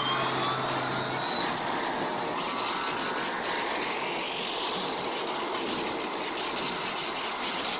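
Science-fiction sound effect of the spaceship's radiation-removal device powering up and running: a dense machine rush with whining tones gliding upward. Steady high tones come in about two seconds in. This is the device at work clearing radiation gas from the ship.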